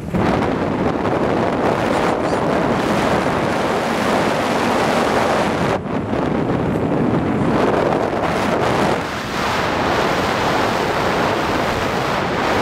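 Wind rushing over a camera microphone during a tandem parachute descent under an open canopy: a loud, steady rushing noise with brief lulls about six and nine seconds in.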